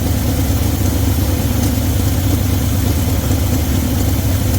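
1972 Chevy C20's V8 idling steadily. The owner thinks it may be misfiring on cylinder 4 as well as on other cylinders.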